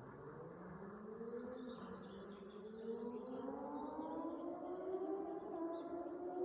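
Straight-piped Yamaha XJ6 inline-four motorcycle engine, pulling up through the revs. Its pitch climbs steadily with a couple of brief dips, and it grows louder throughout.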